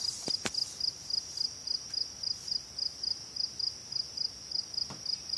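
An insect chirping steadily at a high pitch, about three to four chirps a second, with a couple of faint clicks near the start and end.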